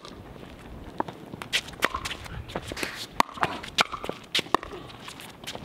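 Pickleball rally: a quick series of sharp pocks from paddles striking the plastic ball and the ball bouncing on the hard court, with players' footsteps shuffling between shots.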